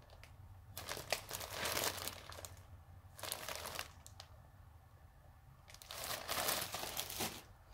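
Clear plastic bag full of yarn balls crinkling as it is handled and turned, in two spells: one through the first three seconds and another near the end, with a quieter stretch between.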